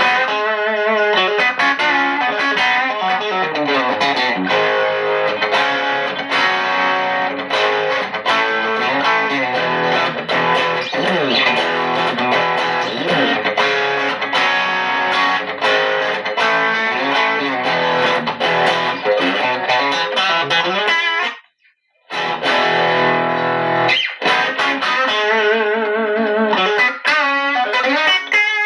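WestCreek TT-20 Telecaster-style solid-body electric guitar played through a small amp with the gain cranked to three-quarters, giving an overdriven tone. The playing mixes notes and chords, stops briefly about three-quarters of the way through, then resumes.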